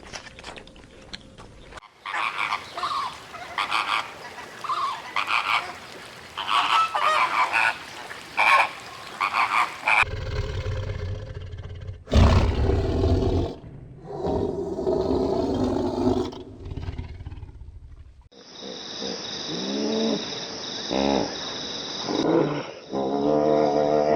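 A series of farm-animal calls, changing abruptly several times: a run of short high chirps for the first several seconds, then low, pitched calls mixed with rumbling.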